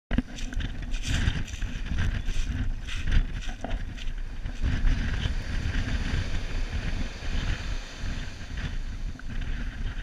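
Wind buffeting the microphone in an irregular low rumble, over the hiss of surf breaking and washing up the beach.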